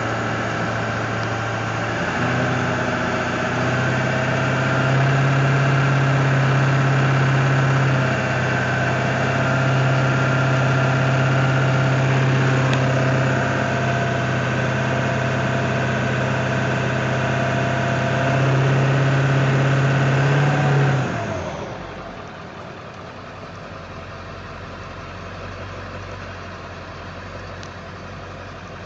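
A 1999 Ford F-350's 7.3L Power Stroke V8 turbo-diesel idles after sitting for days, an idle the owner says shakes badly; the idle steps up slightly a couple of times in the first few seconds. About three-quarters of the way through the engine is shut off and its pitch slides down as it stops.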